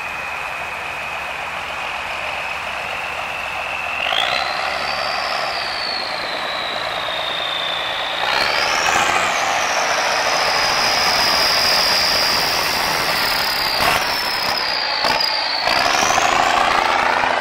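Six-wheeled military cargo truck driving off across a dirt field, its engine revving up and easing off with a high whine that rises and falls with the revs, climbing sharply about nine seconds in. Two short knocks sound near the end.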